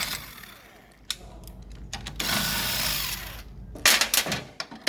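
An impact gun runs in one burst of about a second, loosening a bolt on a transaxle. A few sharp metal clicks follow.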